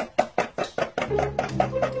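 Music with a quick, even clicking beat, about five or six clicks a second, over a low bass line.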